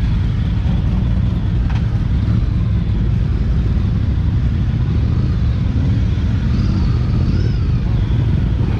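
Motorcycle engines running in a steady low rumble.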